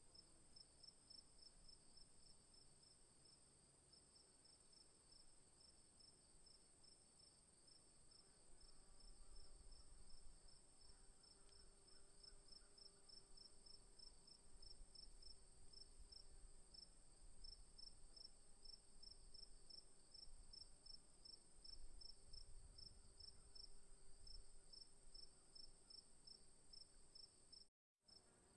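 Faint insect chorus: a steady high trill with a pulsing chirp about three times a second over it.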